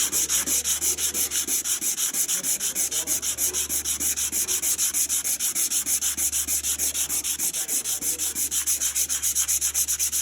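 Fast, even sanding or rubbing strokes, about seven a second, making a steady scratchy hiss that cuts off suddenly near the end.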